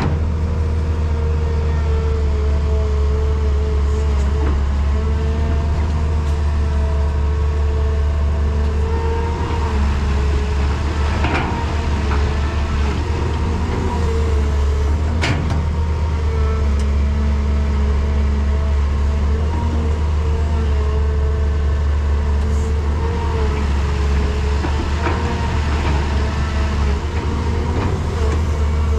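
Excavator's diesel engine running steadily under work with a deep, constant hum, and a few sharp knocks along the way.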